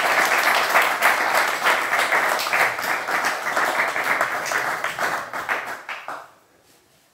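Audience applauding, the clapping dying away about six seconds in.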